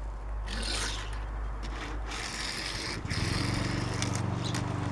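Scraping and rustling as a die-cast toy car is handled and rolled on a surface. About three seconds in, a steady low hum starts and keeps going.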